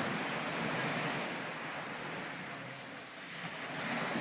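Sea water washing and splashing, with wind buffeting the microphone; the rush eases off about three seconds in, then builds again.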